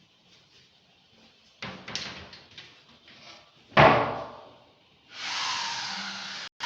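A series of knocks and clatters, then one loud bang a little before the middle, as pieces are handled on a workbench. About five seconds in, a power tool starts up and runs with a steady whir.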